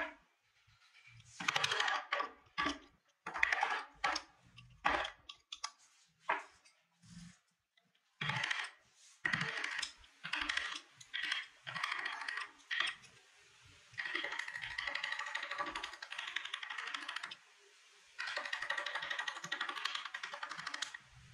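A narrow steel carving gouge cutting and scraping into wood by hand. It starts as a series of separate short crackly strokes, then turns into two stretches of fast, continuous scraping, each a few seconds long, in the second half.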